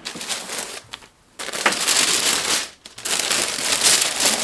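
White tissue paper rustling and crinkling as it is unfolded and lifted out of a shoe box, in three stretches with short pauses about a second in and just under three seconds in.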